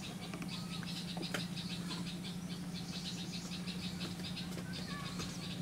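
Outdoor ambience: a steady low hum under fast, high chirping pulses, about eight to ten a second.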